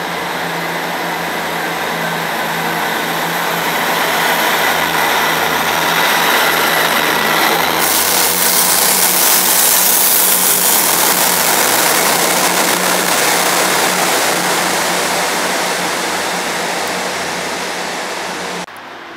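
Class 158 diesel multiple unit passing close by, its diesel engine giving a steady low hum under wheel-on-rail noise. The noise builds to a peak about ten seconds in and fades as the train draws away, then cuts off suddenly near the end.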